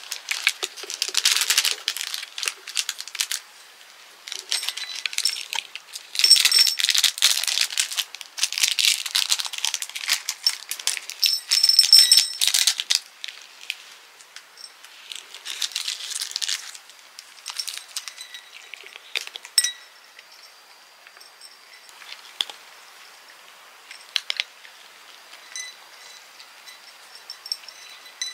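A crinkly foil cat-treat sachet is torn open and shaken, and small dry treats rattle onto small ceramic dishes in dense bursts through the first half. After that come sparse clicks and crunches as cats eat the dry treats from the dishes.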